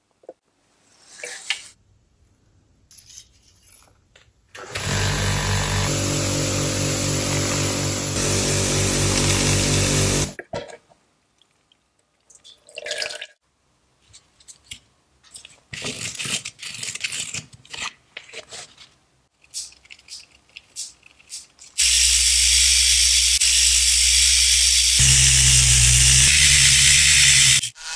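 A motorised workshop tool runs in two steady stretches, with a hiss over a hum. The first lasts about five seconds. The second lasts about six and shifts pitch partway through. Between them come scattered clicks and scrapes of handling.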